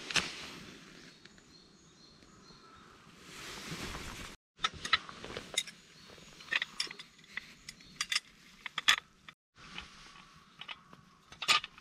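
A match struck and flaring with a short hiss, then a run of sharp metal and glass clicks and clinks as a small oil lantern's glass globe is fitted and its metal lid closed, ending with a loud clink as the lantern is hung by its handle. Faint bird chirps in the background.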